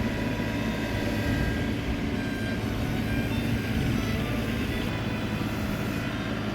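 A motor vehicle's engine running steadily, a continuous low drone.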